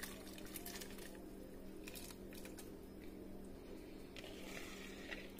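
Sliced sausage sliding out of a plastic bowl into a pot of broth, heard faintly as soft plops, light scrapes and taps of the plastic bowl, over a steady low hum.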